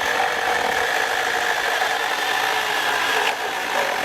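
Small battery-powered electric chainsaw running at full speed with a steady whine, its chain cutting into pallet wood; the whine shifts slightly a little over three seconds in.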